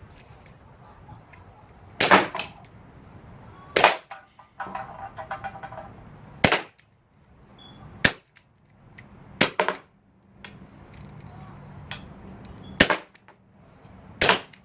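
Gas-powered metal BB gun firing shot after shot, about seven sharp pops spaced a second or two apart.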